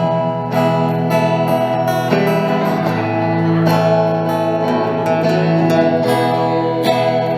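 Live country music in an instrumental stretch without singing, led by strummed guitar.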